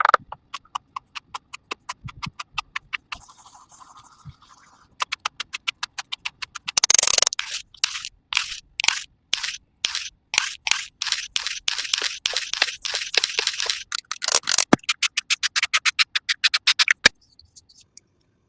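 Makeup tools brushing and scraping on a watermelon's rind in quick, evenly repeated strokes, several a second, with a dense run about seven seconds in; the strokes stop about a second and a half before the end.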